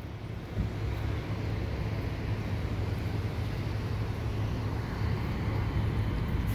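Storm wind gusting over the microphone: a steady low rumble that grows stronger about half a second in, under a hiss of wind and street noise.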